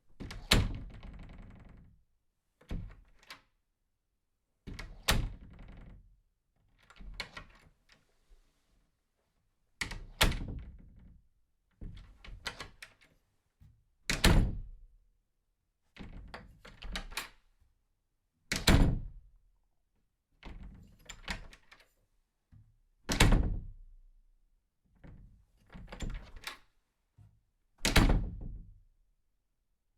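A door being opened and closed over and over: quieter opening sounds alternate with a sharp thud as the door shuts, about seven shuts in all, one every four to five seconds.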